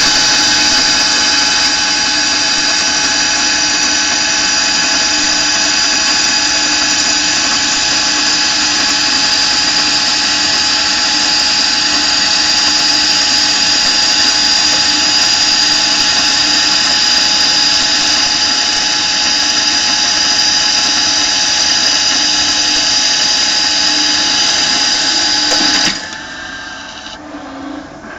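Okuma lathe making a heavy turning cut on a 200 mm workpiece, 5 mm depth of cut at 0.28 mm/rev feed: a loud, steady cutting noise with a high whine. It stops abruptly about 26 s in, leaving a much quieter machine sound.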